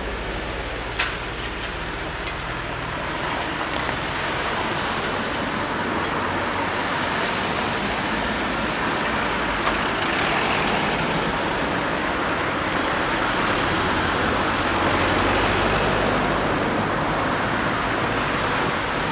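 Road traffic: cars and a van driving across a level crossing one after another, a steady sound of engines and tyres that swells as each vehicle passes. A single sharp knock about a second in.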